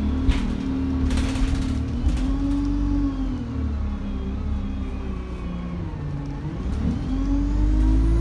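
Single-decker or double-decker bus diesel engine pulling, its note dipping and then climbing again as it accelerates, with a faint high turbo whistle that starts rising sharply near the end. A brief rattle sounds about a second in.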